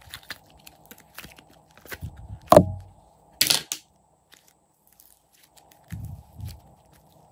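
Thick blue slime being pried out of a plastic mould and handled: small crackles and clicks, a loud thud about two and a half seconds in, a short crackling rip about a second later, then two soft thuds as the slime is stretched and folded between the hands.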